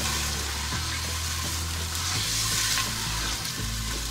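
Raw chicken pieces sizzling in hot oil in an aluminium pot, giving a steady frying hiss, while a wooden spoon stirs them. The chicken is being fried so that it loses its rawness.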